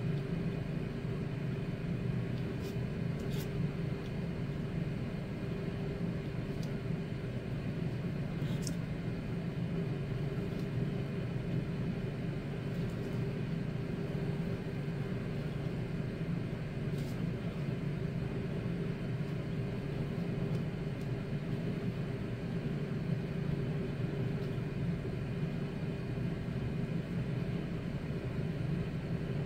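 Steady low mechanical hum, even throughout, with a few faint light clicks.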